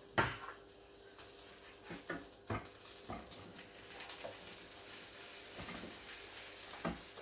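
Sliced button mushrooms scraped off a wooden cutting board into a frying pan with a wooden spatula: a few knocks of utensil on board and pan, the loudest right at the start, then a faint sizzle as they begin to sauté.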